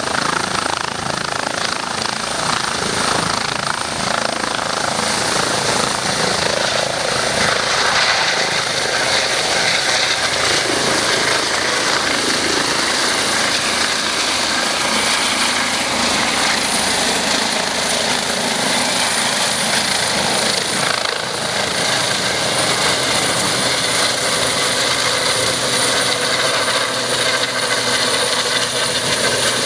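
Eurocopter EC135 air ambulance helicopter lifting off and climbing away overhead: loud, steady rotor noise with a high, steady whine above it.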